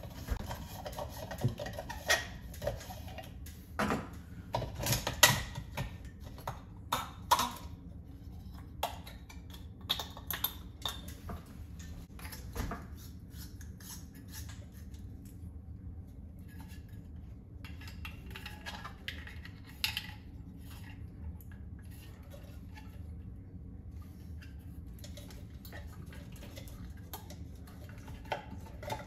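Clicks, taps and light metallic clinks of hands working a recessed ceiling can light: the old trim and bulb come out, and an LED retrofit insert is plugged in and pushed up into the metal can. The clicks come thickly for the first dozen seconds, then more sparsely, over a steady low hum.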